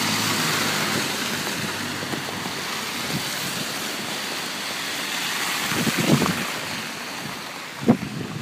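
Traffic on a snowy street: a truck passes close, its engine and tyre noise loudest in the first two seconds and then fading. A car goes by near the end, with a sharp thump just before it.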